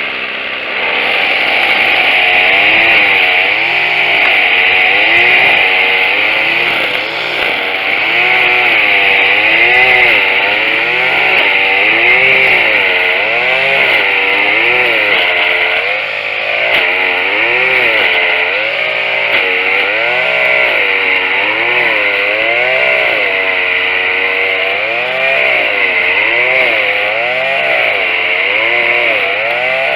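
Tanaka TCG22 22 cc two-stroke string trimmer running, fitted with a new carburetor, its engine speed rising and falling over and over about once a second or so as the throttle is worked.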